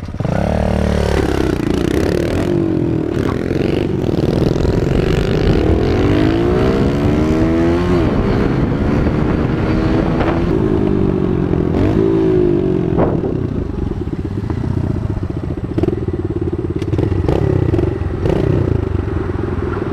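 Dirt bike engine heard from the bike itself, revving up and dropping back again and again as it shifts up through the gears while riding off down the street. Wind noise runs under it.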